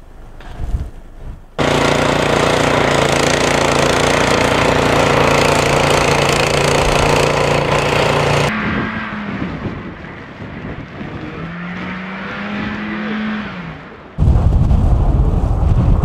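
A gasoline snowblower's engine running steadily at full throttle, loud and even, for about seven seconds. A car engine follows, revving up and down in the snow. Near the end, wind gusts buffet the microphone.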